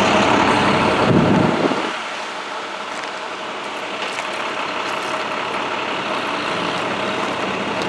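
Road vehicles driving past close by, loudest for the first couple of seconds as one goes by, then a steadier wash of traffic noise.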